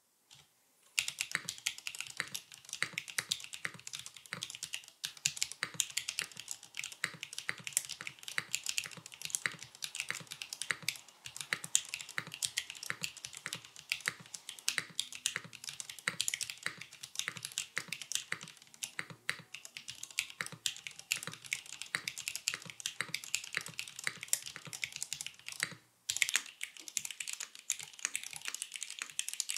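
Sound test of a Geonworks F2-84 tenkeyless mechanical keyboard fitted with hand-lubed Cherry MX Clear-Top Black linear switches: continuous typing, a dense stream of key clacks. It starts about a second in and breaks briefly near the end before the typing resumes.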